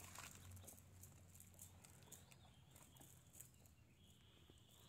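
Near silence: faint outdoor background with a low steady hum and scattered faint ticks.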